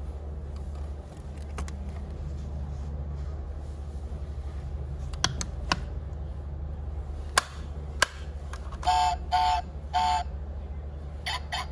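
A 1/24 diecast Ford Mustang Shelby GT500 model being handled: sharp clicks as its parts are worked, then three short two-tone electronic beeps from the toy's sound-and-light module as its headlights come on. A steady low hum runs underneath.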